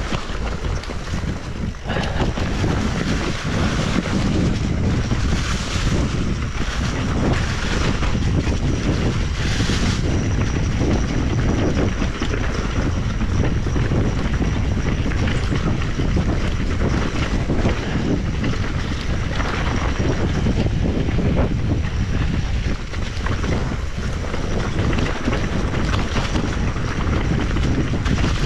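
Wind rushing over the microphone of a camera riding on a mountain bike, with rattles and knocks from the bike going over rough trail.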